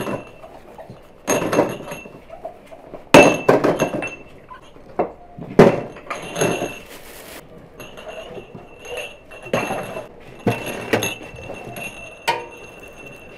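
Cut-glass tea glasses clinking against each other and a metal tray as they are wiped and set out: a string of sharp clinks, each with a brief high ring.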